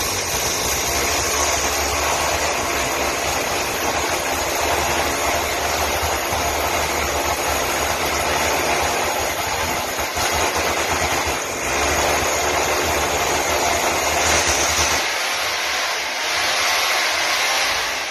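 Corded electric rotary hammer drill running under load, boring through a wall with a long bit. It runs almost without a break, easing off briefly a few times, and cuts off right at the end.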